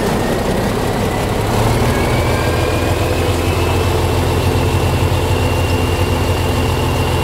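Volvo F16 truck's 16-litre straight-six turbodiesel running with a thin turbo whistle that rises slowly in pitch. The engine's low beat grows louder about a second and a half in.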